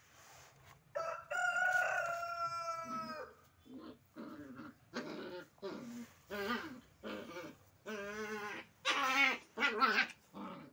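A rooster crows once, a long call of about two seconds starting about a second in, followed by a string of shorter animal calls.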